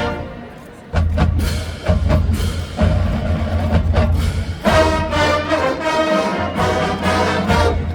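Marching band music. A held brass chord dies away at the start, leaving a few seconds of drum-line percussion: sharp drum strokes over deep bass drum. The full brass section comes back in a little past halfway.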